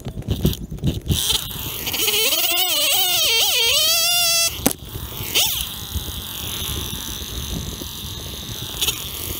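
Kazoo buzzing with a wobbling, bending pitch, standing in for a chainsaw's revving, for about three seconds, then a short rising swoop. A quieter hiss follows.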